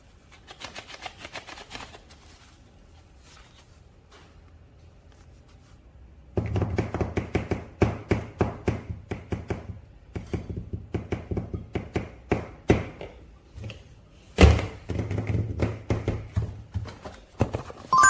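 Plastic toy packaging and figure parts being handled: a brief crinkle near the start, then from about six seconds in a dense run of sharp clicks and taps, with one loud knock a few seconds before the end.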